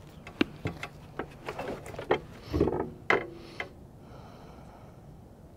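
Handling noise from a bolt-action rifle at a shooting bench: a run of light metallic clicks and clacks over about three and a half seconds, with one duller knock near the middle, as the shooter readies the next shot.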